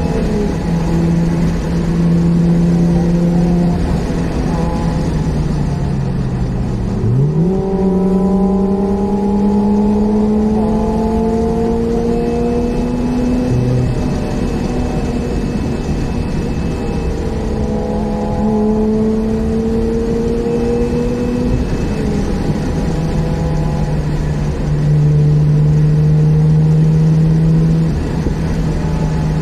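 Mazda RX-8's twin-rotor rotary engine heard from inside the cabin under brisk driving, its pitch climbing in long pulls and dropping at gear changes several times, over steady tyre and road noise.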